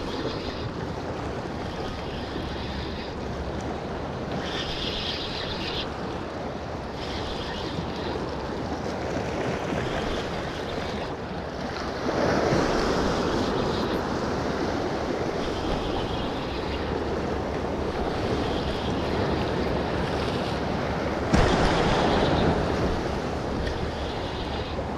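Sea waves washing against a rock ledge, with wind buffeting the microphone. The surge swells louder about halfway through and again near the end, where a single sharp knock comes just before it.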